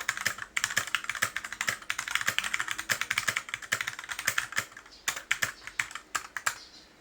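Typing on a stock Rumi61 60% mechanical keyboard with linear Gateron Red switches: a fast, dense run of keystroke clacks that thins to scattered presses after about five seconds.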